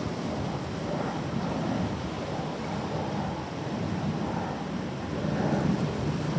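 Sea waves washing on the shore, a steady low rumbling surf that swells a little about a second in and again near the end, with some wind on the microphone.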